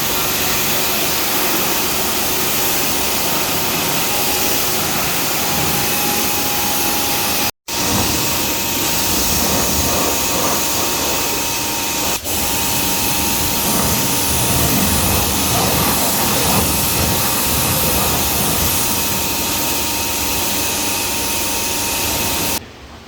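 Car-wash equipment running: a loud, steady hiss of spraying water or air with a faint steady whine under it. It breaks off briefly about seven and a half seconds in and dips for a moment about twelve seconds in.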